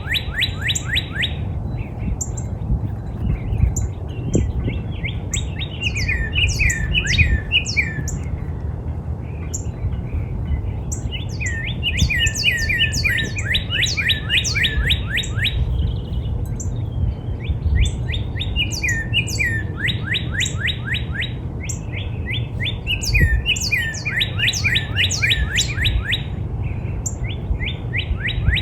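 Northern cardinal singing: phrase after phrase of rapid, repeated down-slurred whistles, with short pauses between phrases, over a steady low background rumble.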